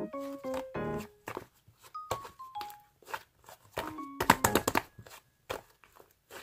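Light background music with short plinking notes, over irregular clicks and pops of a soft slime being stretched and squeezed by hand, with a dense run of loud pops about four seconds in.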